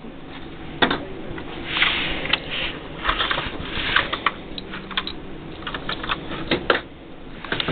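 Plastic Lego pieces clicking and knocking as they are handled and fitted together: a string of irregular sharp clicks with short rustles between.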